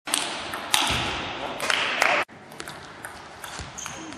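Loud hall noise with voices for about two seconds, cutting off suddenly, then quieter with sharp, scattered clicks of a table tennis ball on bats and table.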